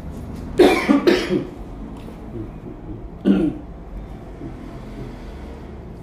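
A person coughing: two coughs in quick succession about half a second in, then one more a little past the three-second mark, over a steady low hum.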